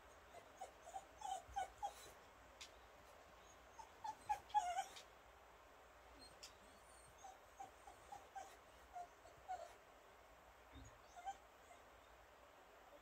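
Dog whimpering: short, high whines coming in several clusters of quick cries, with a few faint clicks among them.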